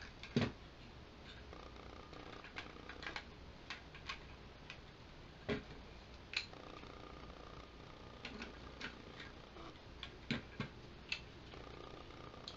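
Plastic parts of a Power Rangers Lost Galaxy Megazord beast figure clicking and snapping as it is handled and its pieces are pulled off and fitted back, with irregular sharp clicks every second or so.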